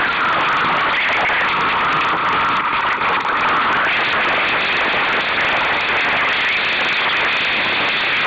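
Steady loud rush of wind and water on a sailing dinghy under way through choppy water.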